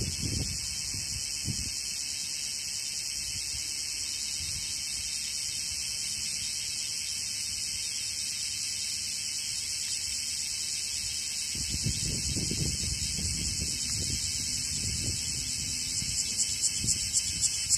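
Cicadas singing: a continuous shrill, high-pitched buzz. Near the end it takes on a pulsing rhythm of about three pulses a second.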